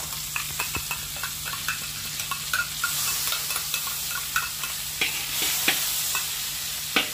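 Butter melting and sizzling in a hot wok, with many small crackling pops as it spatters, while a metal spatula stirs it; a few sharper clicks of the spatula against the wok come near the end.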